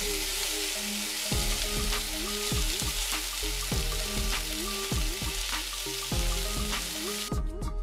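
Bacon frying with diced onions and potatoes in a hot oiled frying pan, a steady dense sizzle that cuts off suddenly near the end. Background music plays over it.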